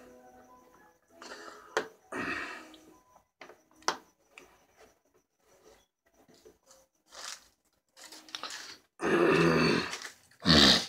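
A man making short, wordless vocal sounds close to the microphone: a weak one about two seconds in and two loud ones near the end. Small clicks and rustles from the phone being handled fall in between.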